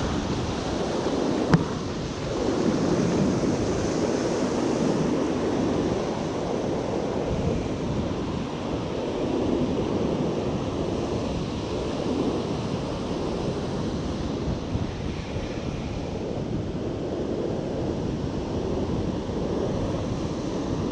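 Ocean surf breaking and washing up a sandy beach, swelling and easing in slow waves, with wind buffeting the microphone. A single sharp click about a second and a half in.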